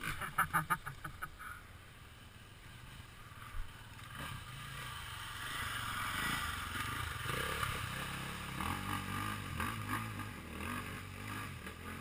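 Off-road trail motorcycle crossing a river ford. A hiss of water spray swells over the middle, then the engine note rises and falls from about eight seconds in. A quick run of knocks comes right at the start.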